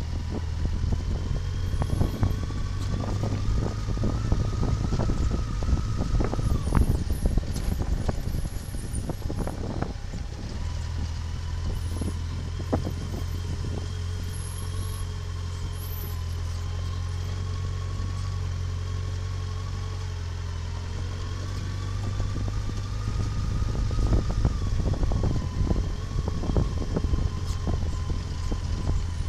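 Motor vehicle engine running steadily, its pitch rising and falling with speed, over frequent knocks and rattles like a vehicle driving on a rough road.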